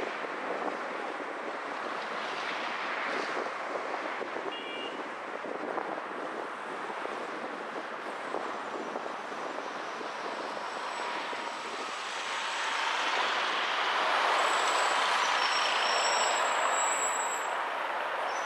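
City traffic and road noise heard from a moving car: a steady rush of tyres and passing vehicles that grows louder about two-thirds of the way in. A few brief high-pitched squeals sound near the end.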